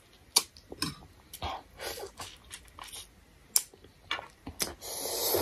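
Mouth noises while eating: a run of short wet lip smacks and sucks on a lemon slice, then a longer breathy noise near the end.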